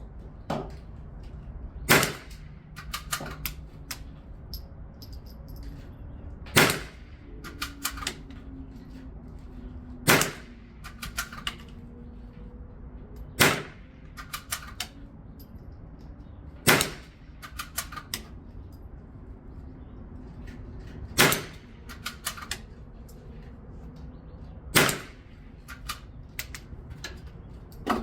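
.22 LR firearm fired one shot at a time at steel targets: seven sharp shots, spaced about three to four seconds apart, with fainter cracks in between.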